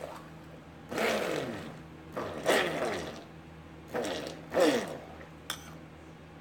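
Stick (immersion) blender pulsed in short bursts in a slow cooker of melting shea butter and oils. Each burst starts abruptly and its pitch falls away as the motor coasts down, about five times, with a sharp click near the end.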